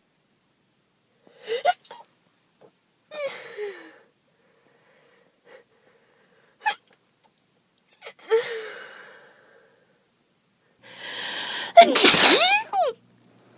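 A person's allergy sneezes, about five in a row, each separated by dead silence. Four short sneezes are spaced a couple of seconds apart. Near the end comes a longer, louder sneeze after a drawn-in breath.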